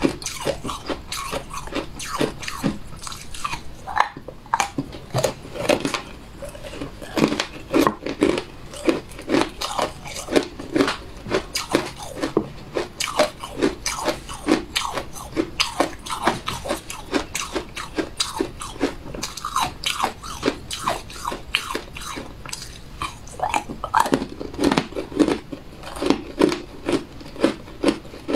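A person biting and chewing food, a continuous run of small crunching clicks, several a second, with no talking.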